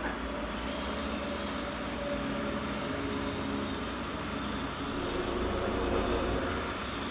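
Steady drone of mulching machinery, a low rumble with several held tones over it, swelling a little about five seconds in before easing back.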